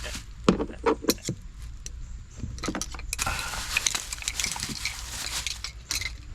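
Metal clinking and rattling as small tools or parts are rummaged through and handled. There are a few sharp separate clicks in the first second or so, then denser jingling from about three seconds in.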